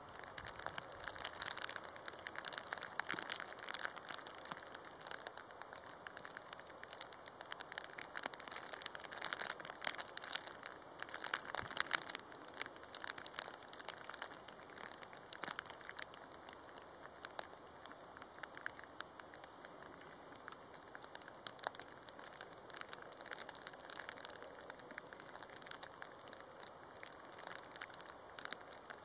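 Heavy rain falling: a dense, steady patter of raindrops with many sharp individual drop hits, heaviest about twelve seconds in.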